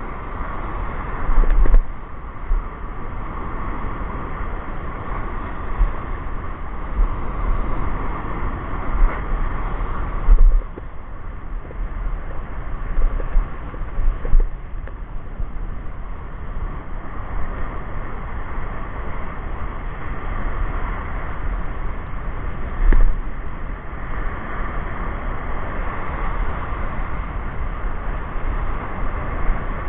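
Small waves washing and breaking in the shallows, a steady rushing hiss, with wind buffeting the camera microphone in repeated low rumbling gusts.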